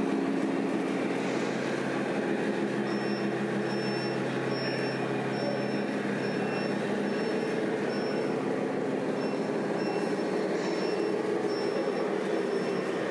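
Scale RC truck's sound module playing a steady diesel engine sound. From about three seconds in, a reversing beeper sounds in short, evenly spaced high beeps, about two a second, until near the end.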